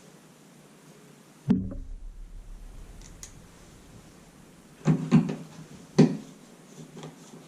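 Handling knocks and clicks: a sudden low thump about a second and a half in with a short rumble after it, then a cluster of sharp clicks and knocks around five and six seconds in.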